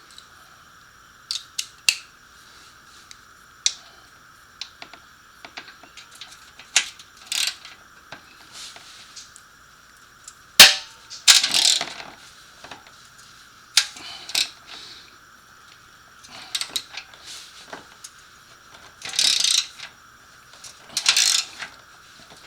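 Hand tools working bolts on a motorcycle exhaust: scattered metal clinks and short bursts of ratchet-wrench clicking, with one sharp metallic clank about ten and a half seconds in.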